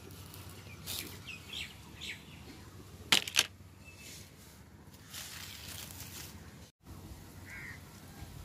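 Dry palm bark and husk fibre rustling and crackling as it is handled, with two sharp clacks about three seconds in.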